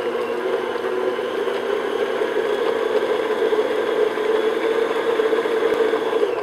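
Electric stand mixer running steadily at medium speed, its flat paddle beating egg yolks into creamed butter and sugar in a glass bowl. The motor is switched off right at the end.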